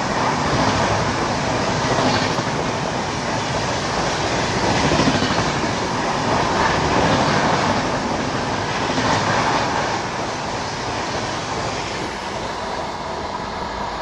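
Express train coaches passing at speed close by, their wheels clattering over the rail joints in a dense rush of noise. The noise swells and eases every second or two and drops a little over the last few seconds.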